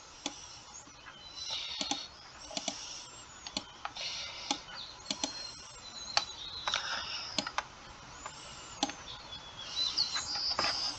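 Sharp computer mouse clicks, scattered irregularly, as straight lines are drawn in a paint program, over faint high chirping in the background.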